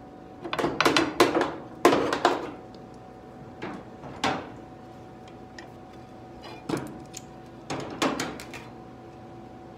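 Metal clanks and clacks as locking C-clamps are released and taken off a length of rusty steel angle iron clamped across a car body. The knocks come in short clusters, loudest in the first two and a half seconds, with a few single ones later.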